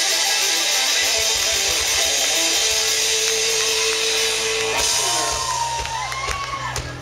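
Live rock band playing loud: electric guitars, bass guitar and drums, with a long held guitar note. About five seconds in, the full-band wash cuts off and a few wavering guitar tones ring out as the song ends.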